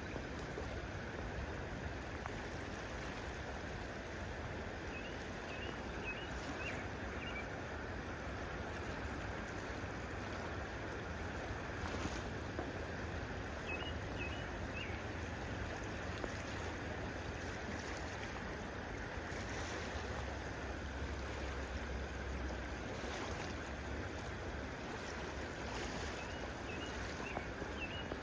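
Steady rush of flowing water, with three brief groups of small high bird chirps: about five seconds in, midway, and near the end.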